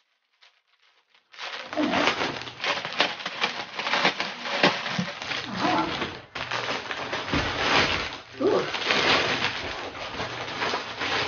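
Clear plastic bag crinkling and rustling as a memory foam seat cushion is pulled out of it and the wrapping is crumpled away. It starts about a second and a half in, after near silence.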